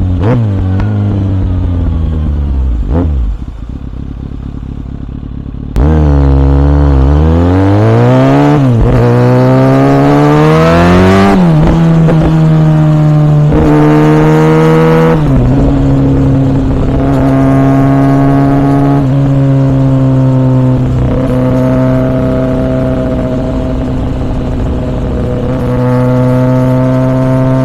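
2014 Kawasaki ZX6R 636 inline-four through a Yoshimura R77 exhaust, heard on board. The revs fall away and the engine runs quieter for a few seconds. About six seconds in it turns suddenly loud and pulls hard, revs climbing steeply and dropping at each upshift, then settles into a steady cruise.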